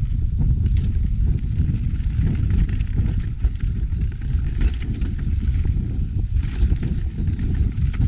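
Mountain bike rolling fast down a rocky dirt trail, with a heavy, steady rumble of wind buffeting the bike-mounted camera's microphone and scattered sharp clicks and rattles from the bike over stones.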